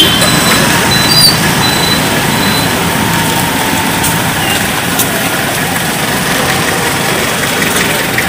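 Steady road traffic noise: motor vehicle engines running nearby.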